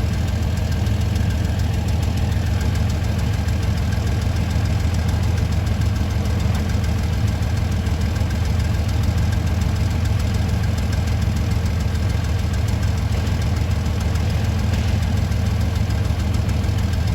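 Bulldozer's diesel engine running steadily with a low, even rumble and a rapid regular pulse, holding the same pitch throughout.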